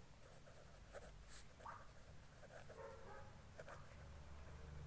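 Pen writing on paper: faint scratching in short, uneven strokes as a word is written out in cursive, over a low steady hum.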